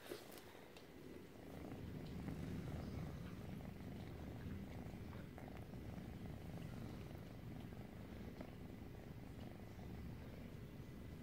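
Kitten purring close up, a steady low rumble that builds about a second and a half in, after a brief knock at the very start.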